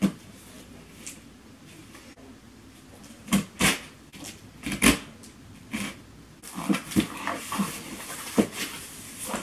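Scissors slitting the packing tape on a cardboard shipping box, with a few sharp tearing and scraping cracks. The cardboard flaps then rustle as they are pulled open near the end.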